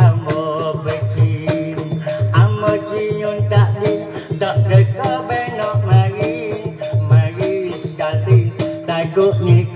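Live Malay wayang kulit ensemble playing instrumental music: a wavering melody over drumming, with a strong low stroke about every 1.2 seconds and a fast, even high clatter of small percussion.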